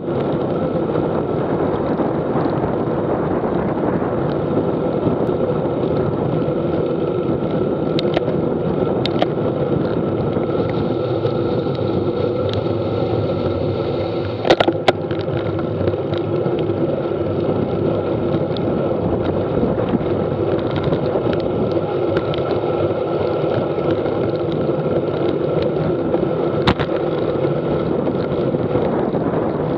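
Steady road and wind noise from riding on wet pavement, with tyres on the wet road and air rushing over the camera. A few sharp knocks cut through, the loudest about halfway through.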